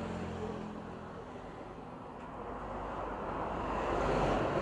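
Road traffic: a vehicle passing on the road, its engine and tyre noise building to a peak about four seconds in and then easing off, over a low steady engine hum.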